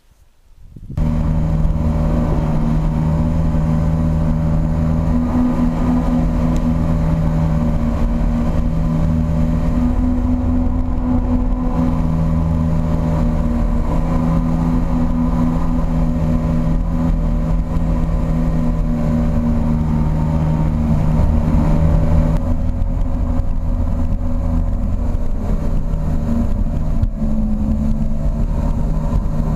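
Motorboat engine running steadily at speed, its pitch shifting slightly a couple of times, with water rushing past the hull. It comes in suddenly about a second in.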